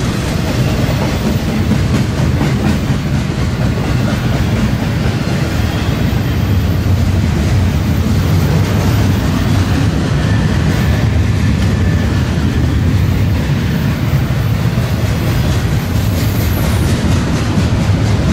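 Double-stack intermodal well cars of a freight train rolling past: a steady rumble of steel wheels on the rails, with wheel clacks.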